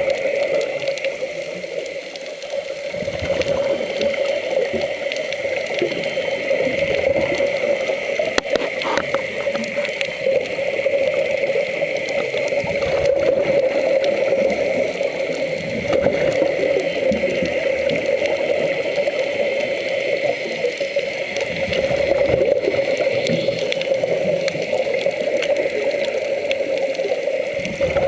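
Water rushing and gurgling steadily, with a constant hum.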